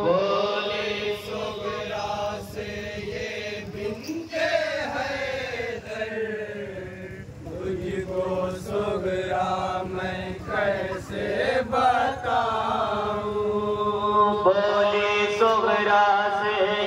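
Nauha, a Shia lament, chanted by a male reciter through a microphone and loudspeaker, with other men's voices joining. Short sharp slaps of chest-beating (matam) come through at irregular moments.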